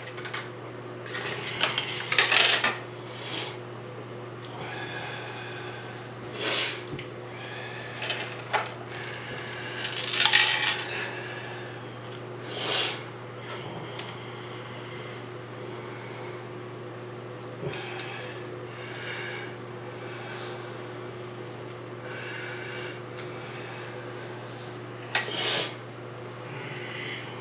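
Metal faucet parts and tools clinking and clattering against a bathroom sink during reassembly, in short separate bursts every second or two, over a steady low hum.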